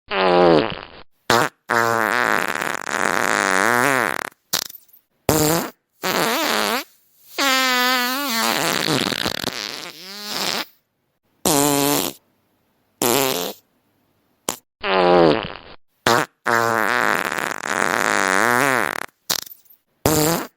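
A string of fart sound effects played one after another, about a dozen in all, with dead silence between them. Some are long and waver in pitch; others are short blips.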